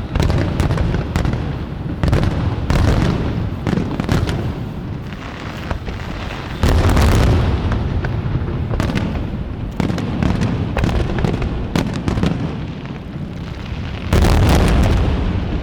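Fireworks shells exploding at very close range: a dense run of deep booms and sharp cracks over a rumble. The heaviest blasts come about halfway through and again near the end.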